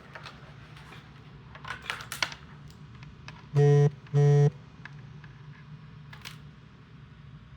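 Two short, loud, buzzy electronic beeps in quick succession a little past the middle, after a few faint clicks, over a low steady hum.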